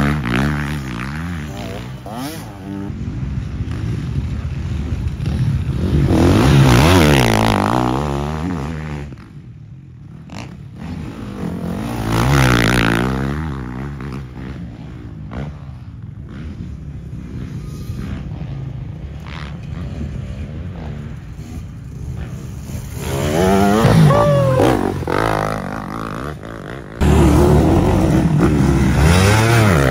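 Off-road dirt bike engines racing past one after another, each revving up loud as it nears and fading as it pulls away. Near the end a group of several bikes comes through together, suddenly louder.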